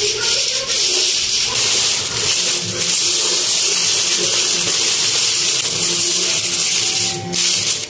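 Aluminium foil rustling and crinkling as a sheet is spread over a disposable aluminium tray and pressed around its rim, over a steady hiss.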